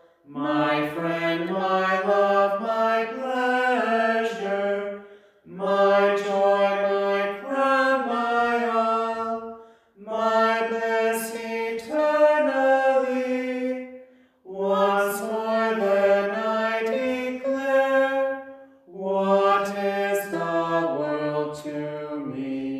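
One unaccompanied voice singing slowly in five phrases of about four to five seconds each, with a short breath between each phrase.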